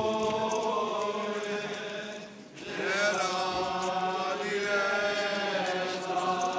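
A group of voices from a robed religious procession chanting together in slow, long-held notes. The phrase breaks off about two and a half seconds in, and a new phrase begins.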